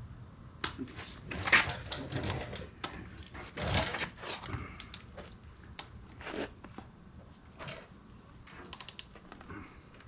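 Hand tools working on a motorcycle's front end: scattered knocks, clatter and rustling, with a quick run of ratchet clicks near the end.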